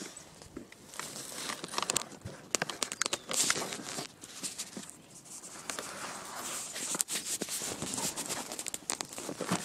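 Close rustling and crinkling with many scattered sharp knocks: handling noise as the phone that is filming is carried and rubbed against clothing and a bag.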